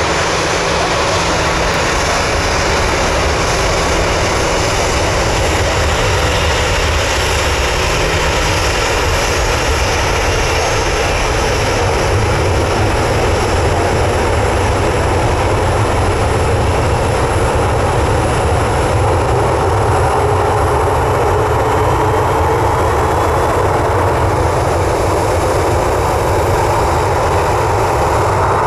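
Boeing 737-800's CFM56-7 turbofan engines at taxi power: a steady, loud jet whine and rumble.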